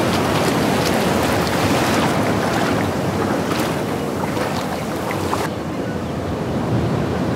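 Sea waves washing onto a sandy beach: a steady rush of surf, with wind. The highest hiss thins out about two-thirds of the way through.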